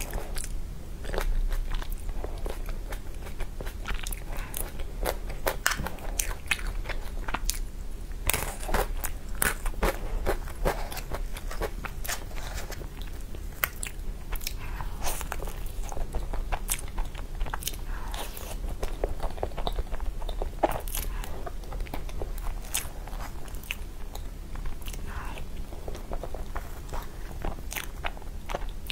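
Close-miked eating of a soft crepe roll cake with whipped cream: chewing and wet mouth sounds, with many irregular small clicks and smacks throughout.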